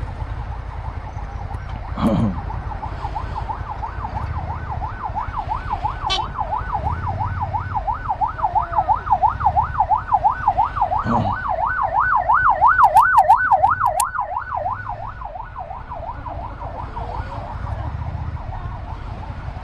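A siren in a fast yelp, its pitch warbling up and down about three times a second. It starts about two seconds in, is loudest about two-thirds of the way through, then fades out. Underneath, the Suzuki SV650's V-twin engine runs at low speed.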